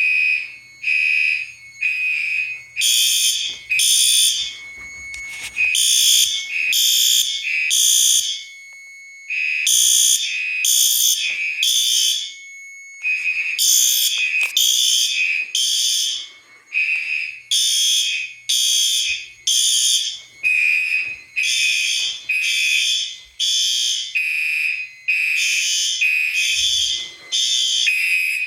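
Fire alarm horns in general alarm: System Sensor L-Series and Gentex Commander 5 horn strobes, set to code 3, sounding the temporal-3 evacuation pattern. Loud, high beeps about a second apart come in groups of three with short pauses, and some beeps overlap.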